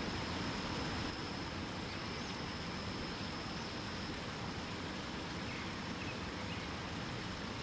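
Waterfall rushing steadily. A thin, high, steady insect buzz stops about halfway through, and a few faint bird chirps come and go.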